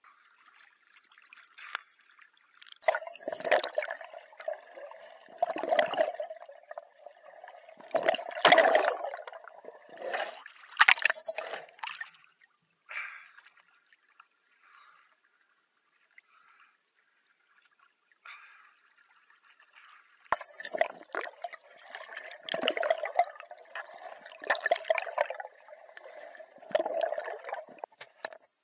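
Sea water splashing and gurgling around a camera dipping in and out of the water with a swimmer's strokes. It comes in surges a couple of seconds apart and eases off for several seconds in the middle.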